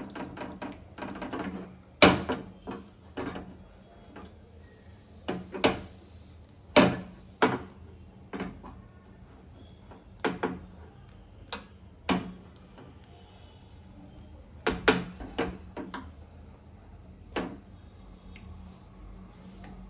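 A steel spoon clinking and scraping on a dosa pan while spreading egg over a dosa: irregular sharp clicks and knocks, scattered through, the loudest about two and seven seconds in.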